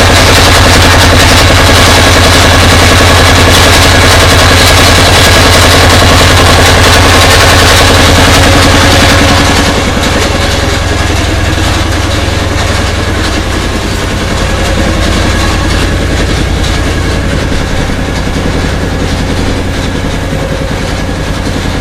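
A wooden river boat's engine running steadily under way: a loud, low drone that drops somewhat about ten seconds in.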